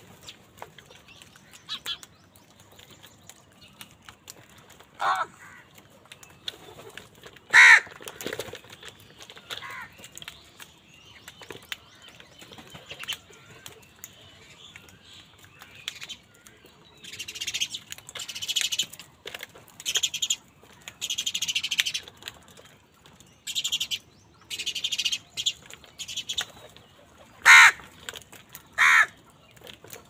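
House crows feeding as a flock: a handful of loud single caws spread out, the loudest about eight seconds in and twice near the end, with a run of wing flapping in the middle as birds jostle and take off around the food.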